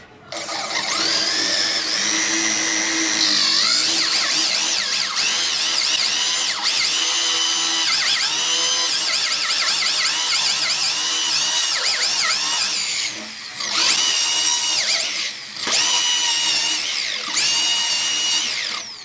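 High-speed electric power tool motor whining, its pitch sagging and recovering again and again as it is loaded. It eases off briefly twice in the last third.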